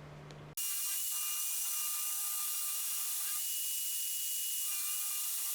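Power abrasive grinding the epoxy handle scales and tang of a forged cleaver to shape: a steady, hissy grinding sound with a steady motor whine. It starts suddenly about half a second in.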